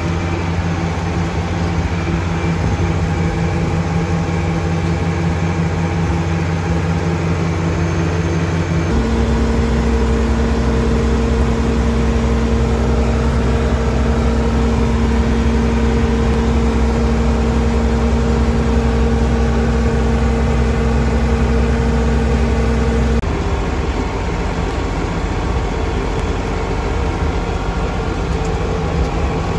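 Engine of an old International Harvester tractor running at a steady speed, heard from inside the cab while driving in second gear. The engine note shifts abruptly twice, about nine seconds in and again about twenty-three seconds in.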